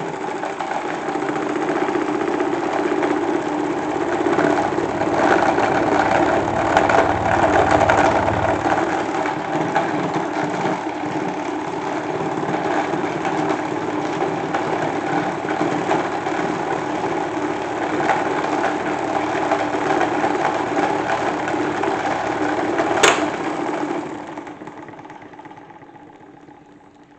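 Salad spinner made into a toy washing machine, spinning on its fast setting with a steady whir. About 23 seconds in there is a sharp click, and the whir dies away over the next few seconds as it winds down.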